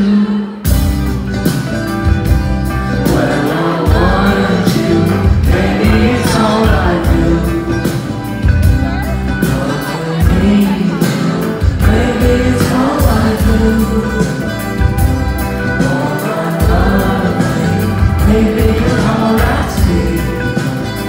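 Live indie pop band playing: male lead vocal over drums, bass and electric guitars, with a steady beat. The music drops out for a moment just after the start, then the full band comes back in.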